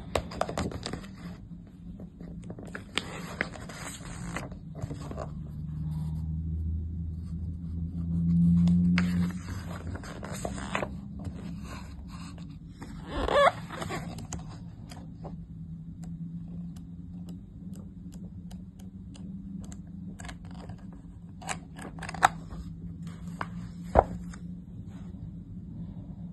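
A large picture book being handled and turned over on a carpet: irregular rustling and scraping of its cover and pages, with a few sharp clicks near the end, over a steady low hum.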